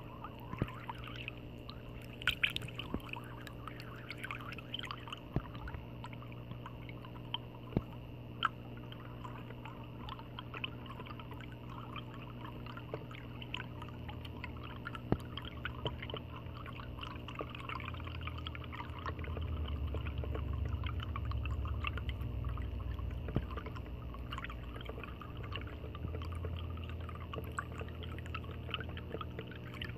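Dragon water fountain with a spinning ball running: water pouring and splashing steadily, with a steady low hum underneath.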